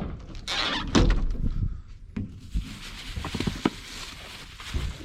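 Vehicle doors being opened and shut: a few low thuds and a rushing noise in the first two seconds, then a cluster of clicks and another thud near the end.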